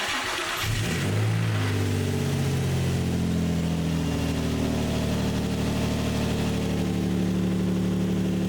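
Nissan 350Z's 3.5-litre V6 starting on a freshly installed battery: it catches right at the start, and the revs settle within a couple of seconds into a steady idle.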